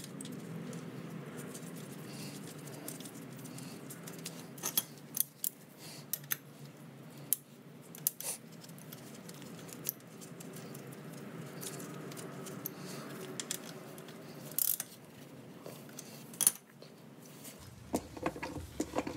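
Scattered, irregular metallic clicks and clinks of hand tools and parts being handled under a car, over a steady low hum that fades about fifteen seconds in.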